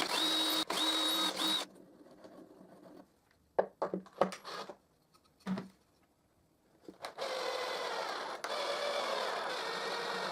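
Electric drill driving screws into plywood: the motor whines in short bursts, stops about a second and a half in, and is followed by a few sharp clicks and knocks. About seven seconds in, the drill runs again steadily to drive the next screw.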